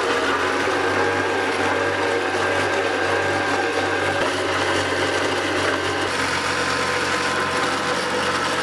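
Concrete block-making machinery running with a steady mechanical rattle.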